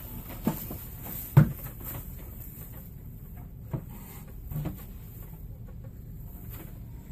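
Long braiding strands being handled and untangled, the cord rustling, with a few light knocks against the workbench and vise, the loudest about a second and a half in.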